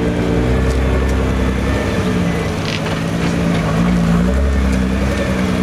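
Nissan GT-R engine running at low revs, its pitch steady apart from a small rise and fall about four seconds in.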